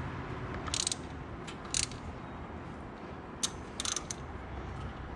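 Socket ratchet clicking in several short bursts while loosening a rocker arm bolt, over a steady low background hum.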